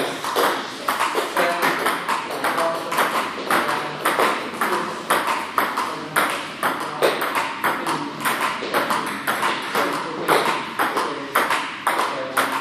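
Table tennis rally of forehand strokes: the celluloid-type ball clicking off rubber-covered paddles and bouncing on the table in a quick, steady rhythm of several sharp clicks a second.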